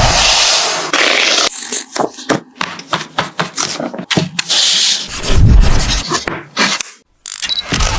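A string of short, unrelated comedy sound effects cut one after another: a noisy burst, a fast run of clicks and knocks, a hiss, a low rumble, a brief gap, then a short high beeping near the end.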